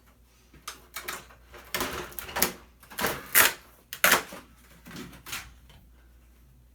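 Stiff plastic sheets from a flat-screen TV's backlight being handled and shifted, a run of irregular rustles and clacks that stops about five and a half seconds in.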